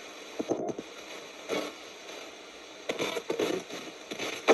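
Radio spirit box sweeping rapidly across stations: a steady static hiss broken every second or so by brief, clipped snatches of broadcast sound and crackle.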